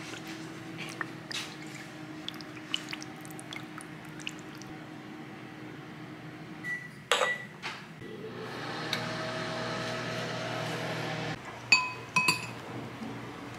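Small clicks and taps of a glass pepper shaker over a bowl of soup, a steady hum for about three seconds in the middle, then a spoon clinking against a ceramic bowl with a short ring near the end.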